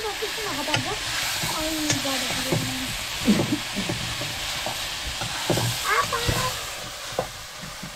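Stinging-nettle (kandali) greens sizzling in oil in an aluminium kadhai while a metal ladle stirs and scrapes them, with short clinks of the ladle on the pan.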